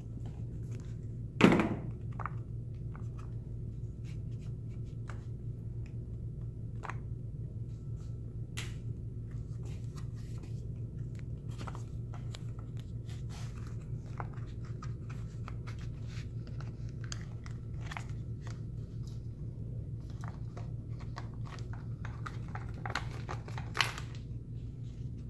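Small clicks and knocks of motorcycle tail-section plastics and turn-signal wiring being worked by hand, over a steady low hum. A sharp plastic snap comes about a second and a half in, and another sharp click comes near the end.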